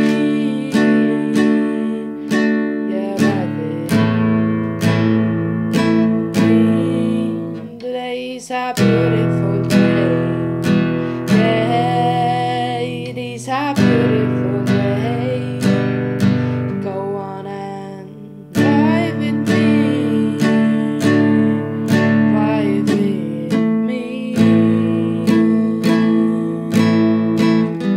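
Acoustic guitar strummed in a steady rhythm through changing chords, with a woman singing over it.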